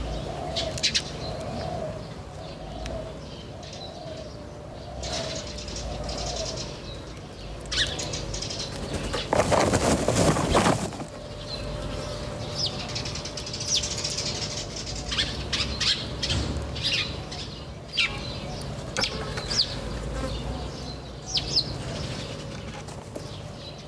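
Birds chirping, with short high calls scattered throughout over a low repeating warbling call in the first several seconds. About nine seconds in, a burst of wing flapping lasts under two seconds and is the loudest sound.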